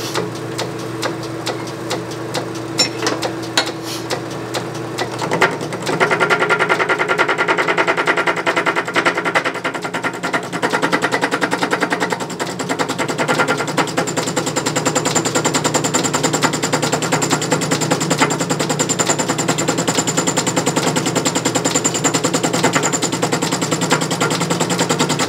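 Small metal lathe taking an interrupted cut in aluminium round stock: the tool strikes the work on every turn of the spindle, giving a rapid even clatter over the hum of the lathe running. The cut gets louder about six seconds in. Interrupted cuts like this are hard on the lathe's machinery.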